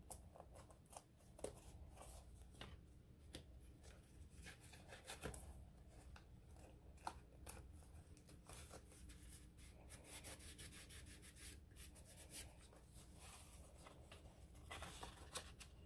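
Faint, scattered rustling, rubbing and soft clicks of paper and card being handled while a tab is fitted into a handmade journal.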